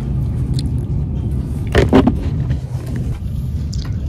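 A steady low rumble with a brief, louder sound about two seconds in.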